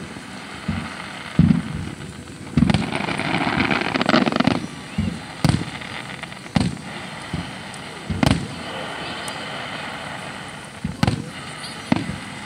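Aerial fireworks shells bursting: about a dozen booms at uneven intervals, with a stretch of hissing crackle between about three and four and a half seconds in.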